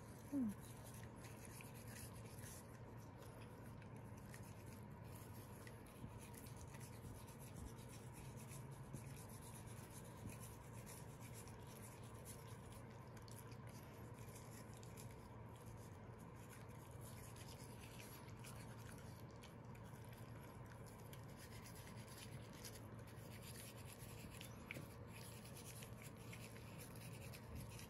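Faint, steady scrubbing of a toothbrush on a Pembroke Welsh Corgi's front teeth: soft rubbing and scratching with small clicks. A brief pitched sound comes right at the start.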